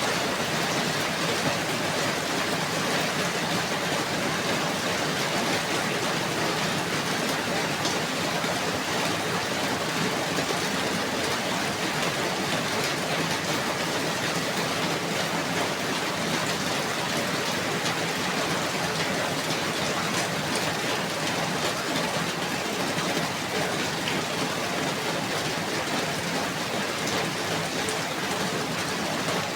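Steady rainfall, a dense even patter of many drops on a surface with no break or change.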